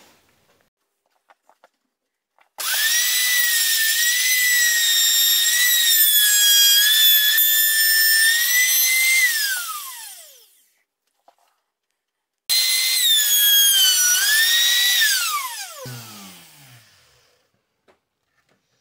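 Trim router motor running twice at a steady high whine, its pitch dipping slightly now and then, each run ending as the router is switched off and its pitch falls while it spins down. The first run lasts about seven seconds, the second about three.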